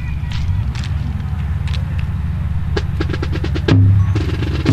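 Marching drums playing: a steady low drum rumble with scattered sharp clicks and a quick run of taps, then about three-quarters of the way in a loud bass drum hit that starts a regular drum beat.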